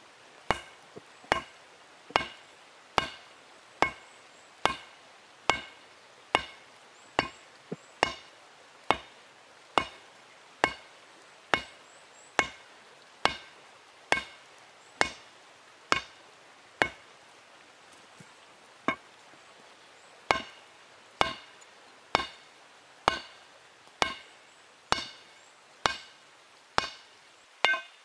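A hand-held stone hammer strikes red-hot steel on a rock anvil in a steady rhythm, a little under one blow a second. Each blow is a sharp clink followed by a brief metallic ring. There is a short pause about two-thirds of the way through.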